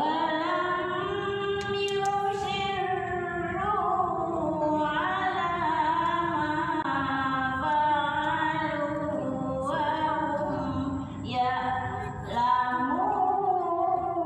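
Quran recitation in melodic tilawah style: one voice chanting long, held, ornamented notes, with short breaths about 11 and 12.5 seconds in.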